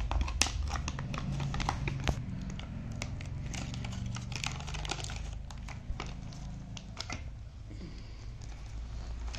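Plastic packaging crinkling and rustling as it is handled, with scattered light clicks and taps.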